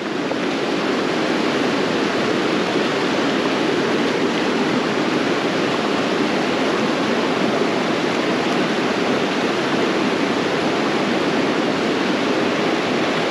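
Fast, shallow river water rushing over rocks in a riffle: a steady, even rush.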